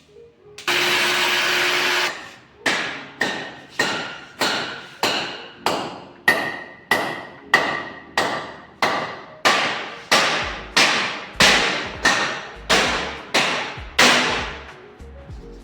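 A loud, steady noisy burst lasting about a second, then a hammer beating metal in a steady rhythm of about twenty blows, under two a second. Each blow rings briefly, as when a steel safety door or its frame is knocked into place.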